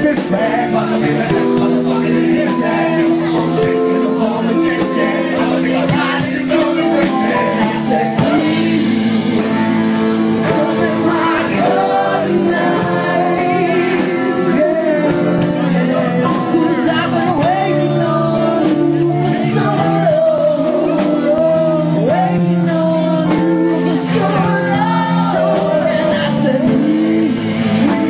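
A live band playing a song, with a singer's voice over the music.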